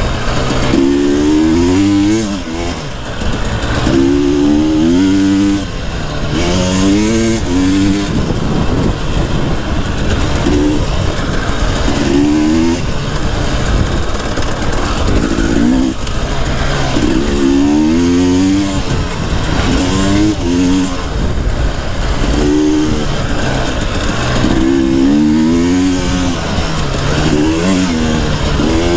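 2018 KTM 300 TPI dirt bike's fuel-injected two-stroke single-cylinder engine under way, revving up in pitch over and over as the throttle is opened and dropping back between pulls.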